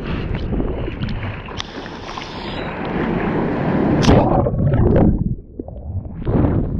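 Sea water splashing and rushing right against a GoPro on a bodyboard as the rider paddles through whitewater. About four seconds in comes a loud splash as the camera goes under. The sound is muffled for about a second before splashing returns as the wave foams over the board.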